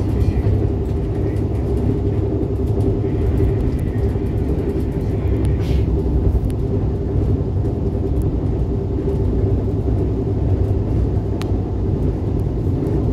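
Inside a Korail RDC Mugunghwa diesel railcar running at speed: a steady low rumble of the running train with a constant droning hum, and a few faint ticks.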